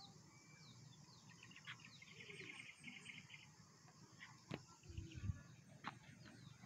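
Faint outdoor ambience of bird calls and insect chirping, with a fast buzzing trill about two seconds in. A few sharp clicks and low bumps in the second half are the loudest sounds.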